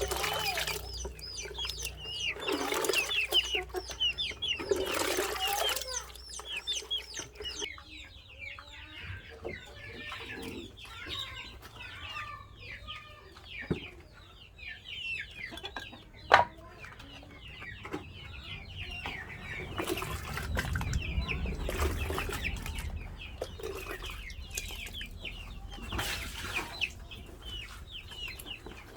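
Domestic chickens clucking and calling on and off, with one sharp click about sixteen seconds in.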